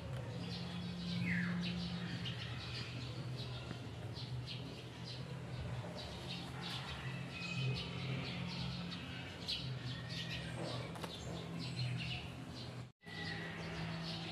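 Many small birds chirping and tweeting in quick, overlapping calls, over a steady low hum. The sound cuts out for a moment near the end.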